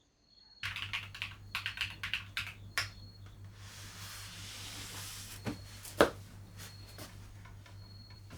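Clicks and clacks of a mechanical keyboard and its parts: a quick run of clicks over the first few seconds, a soft rustle, then one sharp loud click about six seconds in and a few fainter clicks.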